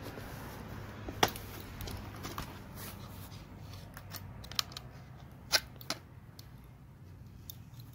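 Flathead screwdriver prying at the grinder-cut slit of a steel fuel filter/pressure regulator canister gripped in slip-joint pliers: a few sharp metal clicks and scrapes, the loudest about a second in.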